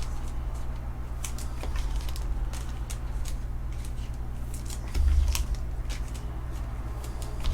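Trading cards being slid into plastic penny sleeves and top loaders: scattered light plastic rustles and clicks, with a low thump about five seconds in.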